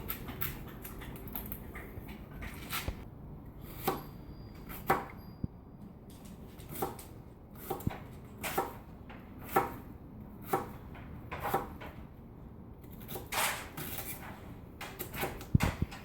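Kitchen knife dicing an onion on a cutting board: single knocks of the blade on the board, unevenly spaced at about one a second, with a quicker run of cuts near the end.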